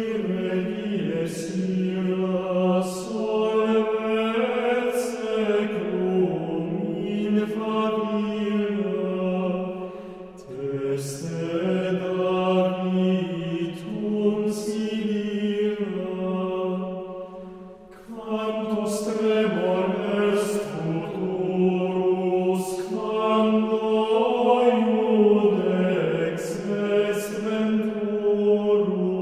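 Gregorian chant sung in unison by a schola, with slow, sustained melodic phrases; the singing breaks briefly about ten and eighteen seconds in between three long phrases.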